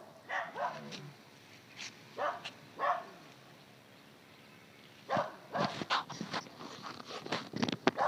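A few short animal calls in the first three seconds, then a quick run of clicks and knocks from about five seconds in.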